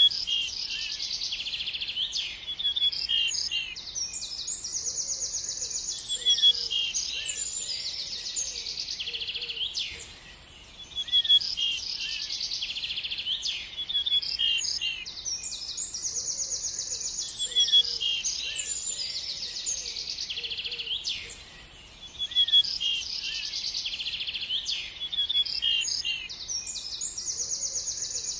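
Birds chirping and singing, high-pitched, with fast trills and quick repeated notes overlapping. The same stretch of birdsong starts over about every eleven seconds, after a brief drop in level: a looped recording.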